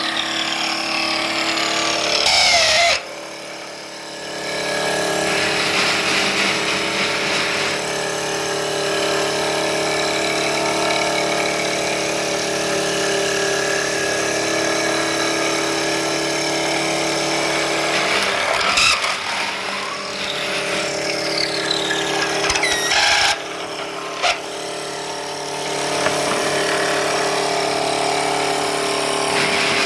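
Wooden brush-handle making machine running, a steady motor whine with several pitches; in the first seconds the whine falls in pitch, and brief pitch glides come again later on.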